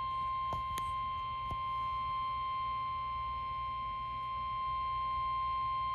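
Steady single-pitch alarm tone near 1 kHz, the weather radio warning alarm tone that signals an emergency warning broadcast is about to follow, over a low hum with a few faint clicks near the start.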